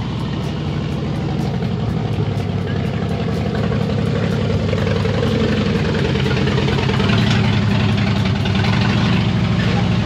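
Motorcycle engine running as the bike rolls slowly across gravel and up into an enclosed trailer, growing steadily louder as it comes closer.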